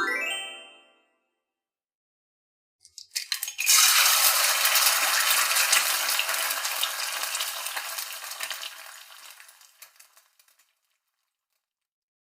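Food frying in a hot pan: a few clicks, then a loud sizzle that sets in about three and a half seconds in and slowly dies away by about ten seconds. At the very start a short rising tone is heard.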